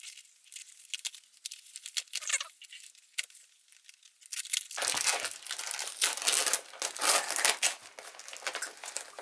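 Packaging being opened by hand: a few light crinkles at first, then continuous crinkling and tearing from about five seconds in.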